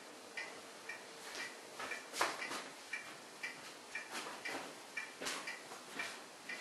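A clock ticking steadily, about two ticks a second, with a few louder irregular knocks and rustles in between.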